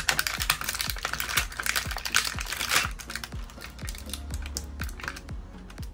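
Small plastic toy makeup pieces clicking and rattling against their plastic case as they are handled, busiest in the first half, over background music with a steady beat.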